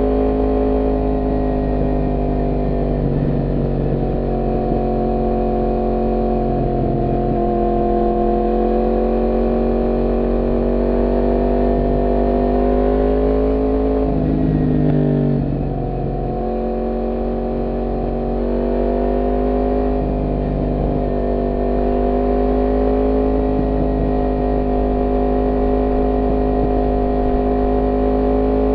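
Yamaha MT-10's crossplane inline-four engine running at steady revs while riding. About halfway through, the revs drop briefly and then climb again.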